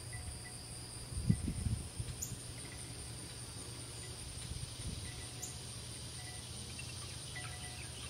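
Insects trilling steadily in high, unbroken tones; a second, lower trill fades out a few seconds in. Faint short repeated notes sound in the background, with a brief low thump about a second in.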